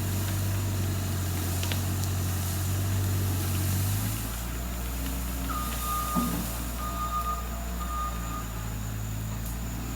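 Bobcat skid-steer engine running, its note dropping lower about four seconds in as the throttle comes down, then its backup alarm beeping three times as it reverses.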